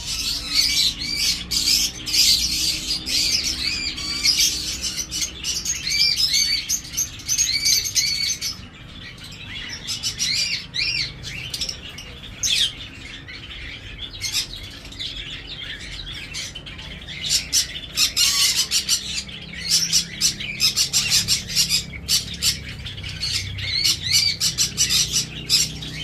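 A flock of small cage birds chirping and squawking together in a steady high-pitched chatter, thinning out for several seconds around the middle before picking up again.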